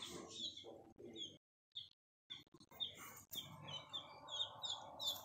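Baby chicks peeping steadily in a brooder: a mixed flock including Leghorn and laced Wyandotte chicks, giving many short, high, falling peeps, several a second. The peeping breaks off for about a second, starting about a second and a half in.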